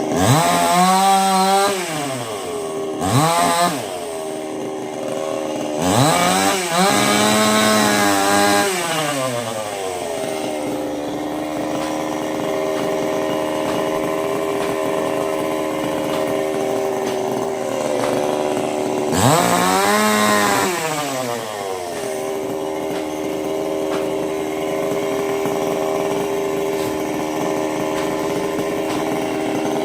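Two-stroke chainsaw running, its engine revved up and back down four times, with a long stretch of steady running at lower speed between the last two revs.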